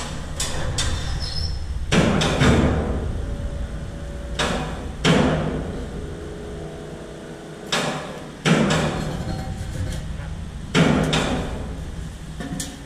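Heavy metal clanks and bangs from work on a large metal exhaust silencer shell, coming in rough pairs four times, some leaving a short ringing tone, over a steady low workshop rumble.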